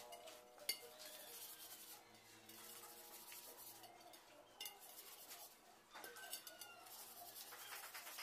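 Faint, fast back-and-forth rubbing of 800-grit sandpaper on a motorcycle mag wheel, scuffing the factory gloss coat so the primer will grip, with a couple of sharp clicks.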